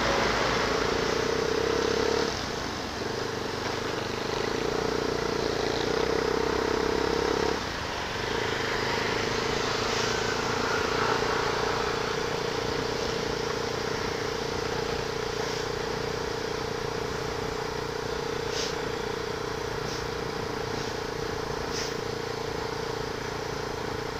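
Motorcycle engine running at a steady cruise with wind and road noise. The engine note dips twice, about two and seven and a half seconds in.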